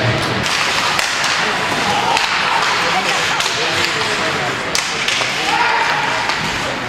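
Ice hockey play in an indoor rink: skate blades scraping and hissing on the ice, with several sharp cracks of sticks and puck against the ice and boards, the loudest near five seconds in. Players' and spectators' voices call out faintly underneath.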